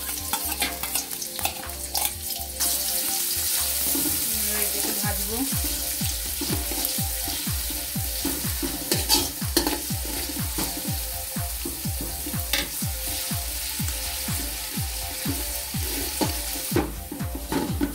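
Chopped onions frying in hot oil, a steady sizzle. From about five seconds in, a spoon stirs them in the pan in quick repeated strokes.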